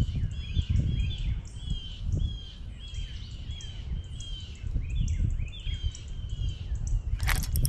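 Birds calling in a run of short, repeated chirped notes, about two a second, over a low uneven rumble. Near the end a sudden loud burst of rustling noise starts.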